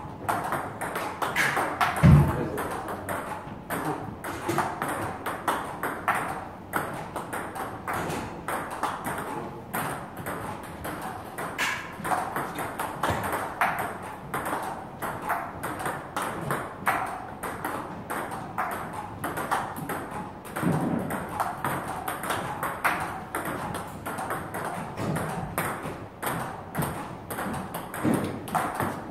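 Table tennis rally: the plastic ball clicking in quick succession off the paddles and the table. A heavy thump about two seconds in.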